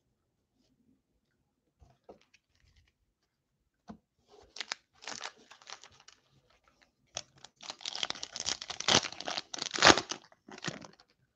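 Plastic wrapper of a baseball card pack being torn open and crinkled: a few faint clicks at first, crinkling from about four seconds in, then louder tearing and crinkling in the last four seconds.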